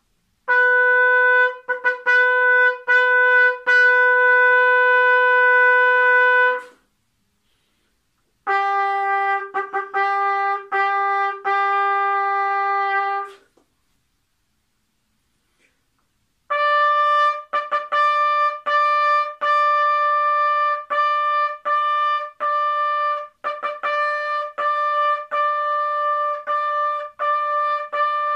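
Unaccompanied trumpet playing three phrases of short, tongued repeated notes, each phrase mostly on one pitch, with pauses of about two seconds between them. The second phrase is lower and the last one is the highest.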